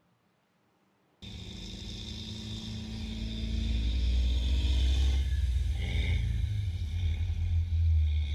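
Engine of a tracked armoured vehicle running as it drives past close by on a sand beach. It starts suddenly about a second in and grows louder until about halfway through, then holds steady.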